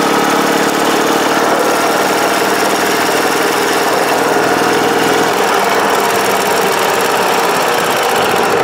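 Ural motorcycle's air-cooled flat-twin engine running steadily on the move, its throttle held open by a homemade throttle lock rather than the rider's hand. Its low note thins out a little about five seconds in.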